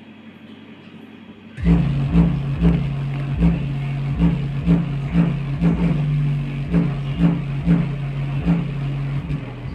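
Dainty 12-inch subwoofer in a ported wooden box playing a bass-heavy track. It starts after about a second and a half of low-level quiet, then keeps up a deep pulsing bass line with a beat about twice a second.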